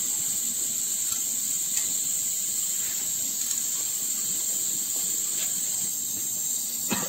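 Gas-oxygen sealing burners of an ampoule filling and sealing machine hissing steadily, with a few faint clicks, the sharpest near the end.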